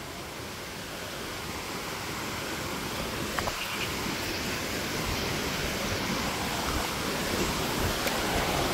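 Rushing water of a forest creek or waterfall, a steady hiss that grows gradually louder.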